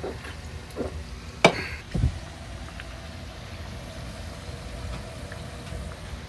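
A sharp click about one and a half seconds in, then a dull thump half a second later, over a steady low rumble.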